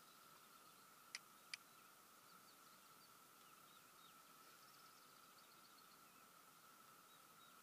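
Near silence: faint outdoor ambience with faint bird chirps and two sharp clicks just over a second in.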